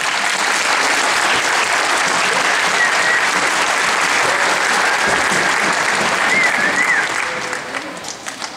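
Assembly audience applauding, a steady burst of clapping that starts at once, holds for about seven seconds and then dies away.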